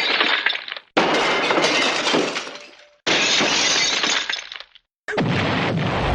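A run of cartoon-library crash sound effects played one after another, each a noisy glass-breaking smash that dies away and is cut off by a brief silence, with new ones starting about one and three seconds in. A final crash about five seconds in carries a heavy low rumble, more like an explosion.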